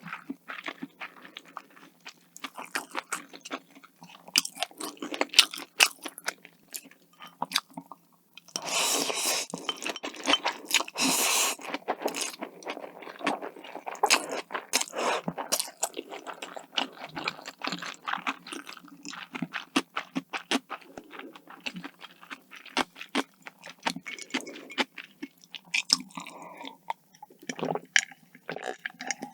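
Close-miked eating: a person chewing and crunching food, with many sharp crunches and a denser, continuous stretch of eating noise from about nine to twelve seconds in.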